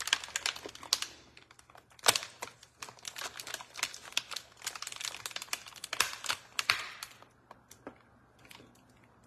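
Aluminum foil being handled, crinkling with irregular sharp crackles that die away in the last couple of seconds.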